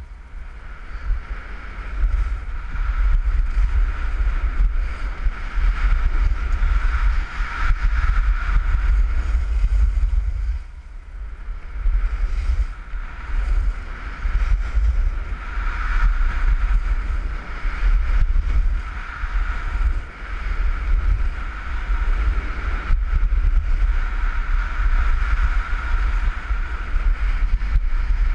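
Wind noise on the microphone of a skier's action camera while skiing downhill, with the steady hiss of skis sliding on packed snow; it eases briefly about ten seconds in.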